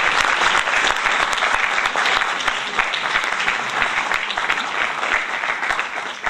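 Theatre audience applauding: dense, steady clapping from many hands, easing off near the end.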